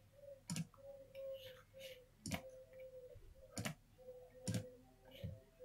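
Computer mouse clicking, about five short sharp clicks at irregular intervals, over a faint steady hum.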